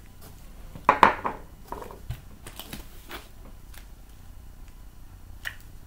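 Handling noises: a brief clatter about a second in, then scattered light rustles and clicks as sheets of paper are lifted and handled.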